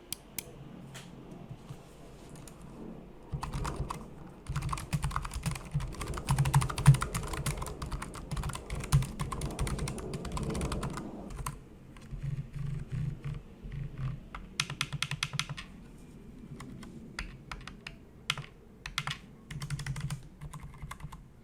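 Typing on a Razer DeathStalker V2 Pro TKL low-profile mechanical keyboard: a few scattered keystrokes, then fast continuous typing from about three seconds in until about eleven seconds, followed by shorter bursts and single key presses.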